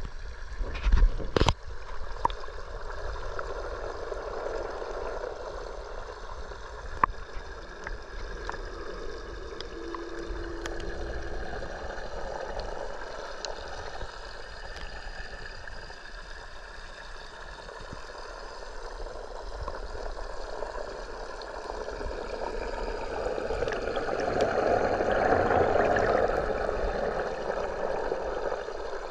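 Water gurgling and rushing in a running reef aquarium, a steady flow sound with a few sharp knocks about a second in. The flow swells louder near the end.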